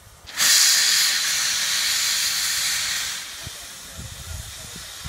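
Steam tank locomotive letting off steam: a loud hiss starts suddenly about half a second in, holds for about three seconds, then drops away to a quieter background.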